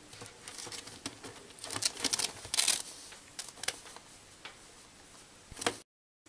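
A ferret scrabbling and climbing on plush hot water bottle covers in its cage: an irregular run of scratchy rustles and light clicks from claws and fabric, busiest around two to three seconds in, with one sharper knock just before the sound cuts off near the end.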